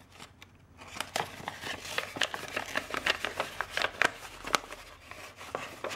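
Printed magazine paper rustling and crackling as a small folded paper bag is opened out by hand, a quick run of short crinkles starting about a second in.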